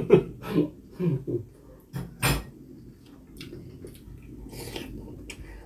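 Close-up eating sounds from a man eating galbitang (beef rib soup): short muffled mouth noises and chewing, a sharp clink of chopsticks on a ceramic bowl about two seconds in, then slurping from the bowl near the end.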